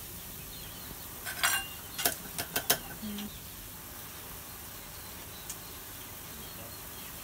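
A pot of moringa curry broth at a rolling boil, bubbling steadily, with a quick run of sharp clicks and knocks about one and a half to three seconds in.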